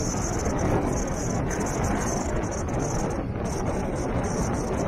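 A vehicle driving steadily along a sandy dirt track: a continuous rumble of tyres and engine.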